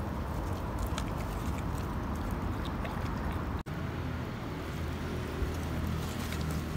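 American Bully dog chewing and crunching napa cabbage kimchi from a hand, with many small crisp clicks over a steady low rumble. The sound breaks off for an instant a little past halfway.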